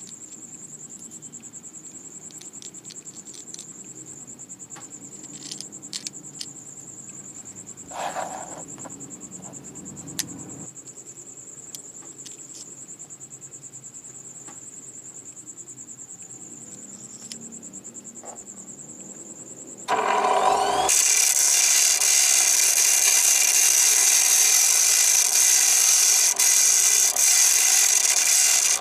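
Loud, steady hiss of rushing air, likely compressed air escaping from a homemade PVC-tank air compressor. It starts suddenly about two-thirds of the way through and cuts off abruptly. Before it, a cricket chirps as a steady high trill, with a few scattered clicks.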